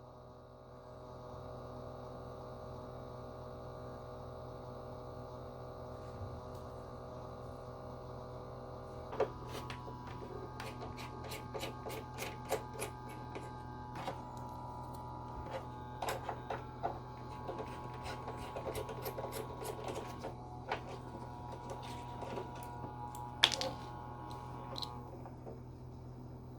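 Xiaomi Mi Air Purifier 3H running with a steady hum, joined from about nine seconds in by irregular clicking and rattling that comes and goes until near the end. This is the noise the owner is unsure of: either the sensor's fan or vibration where the sensor meets the main body.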